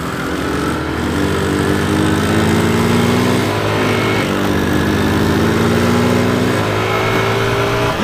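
Motorcycle engine running under acceleration, its pitch climbing slowly, with a brief dip about three and a half seconds in.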